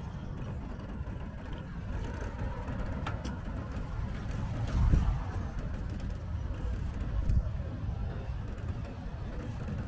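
Steady low rumble of wind and road noise from riding a bicycle, with a brief louder swell about five seconds in.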